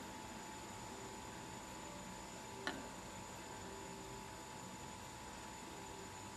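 Quiet, steady electrical hum and hiss, with a single light click a little under three seconds in.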